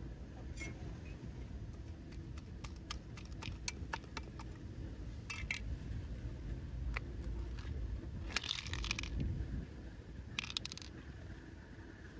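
Close handling of an opened freshwater pearl mussel and its beads: a quick run of small clicks and clinks over the first five seconds, then a few short wet scraping noises as the flesh is worked from the shell, over a low steady rumble.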